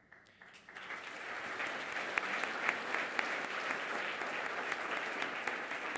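Audience applauding. The clapping builds up over the first second, then holds steady.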